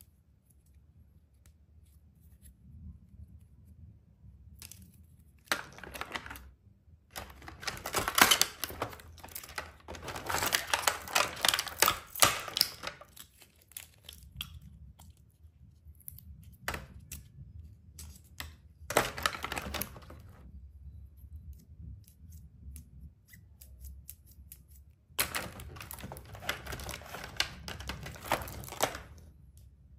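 Plastic toy doctor-kit pieces handled close to the microphone: bursts of clicking and rustling a few seconds long, with quiet gaps between.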